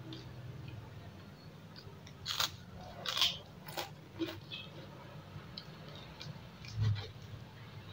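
Close-up mouth sounds of chewing food, with a cluster of crisp crunches about halfway through and a short dull bump near the end.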